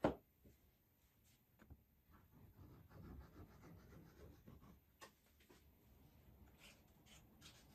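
A plywood strip set down on the worktable with one sharp knock at the start, then the faint scratchy squeeze of wood glue from a plastic bottle laid along a plywood strip, and a few light taps near the end.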